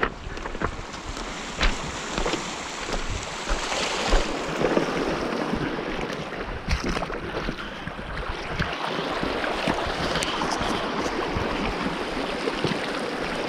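Small waves washing over a pebble beach, with wind on the microphone. In the first few seconds footsteps crunch on the shingle, and about halfway through water splashes around hands in the shallows.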